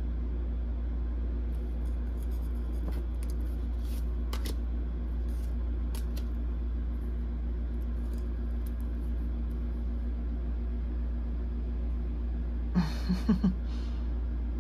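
Steady low hum in a small room, with faint clicks and rustles of tarot cards being handled and laid out. Near the end come four short, louder sounds close together.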